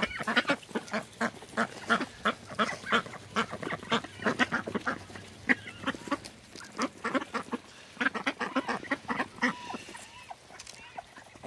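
A flock of domestic ducks feeding together from a rubber pan of grain, their bills dabbling and clacking in the feed in a rapid, irregular run of clicks. A few short quacks come through, around the middle and near the end.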